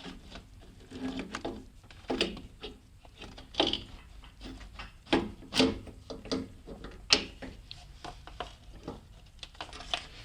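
Irregular metal clinks, knocks and scrapes as a turbocharger and its fittings are handled and worked into place on the engine, with a few sharper knocks spread through.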